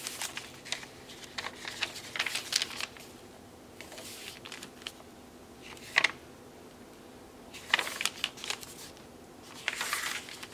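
Pages of a thick handmade paper junk journal being turned one after another: paper rustling and flapping, with a few sharp slaps as pages fall, the loudest about six seconds in and near eight seconds.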